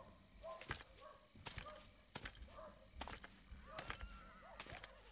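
Faint outdoor night ambience: short animal calls repeated every half second or so, with scattered light clicks.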